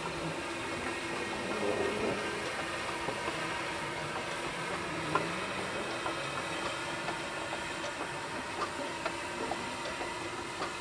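Beyer-Garratt articulated steam locomotive No. 143 moving slowly, with a steady hiss of steam and a few sharp metallic clicks from the running gear and rails.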